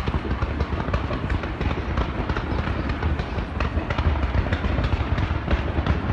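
Fireworks going off in a dense barrage: many rapid cracks and pops over a steady low rumble.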